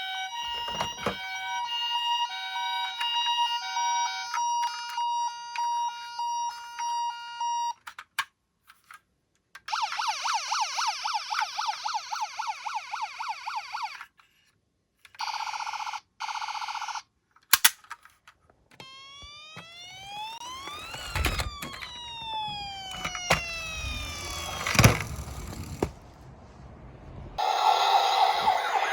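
Electronic toy vehicle sirens running through several patterns. First comes a run of stepped electronic tones at fixed pitches, then a fast warbling siren, then slower rising-and-falling wail sweeps with a few clicks, and a fast warble again near the end.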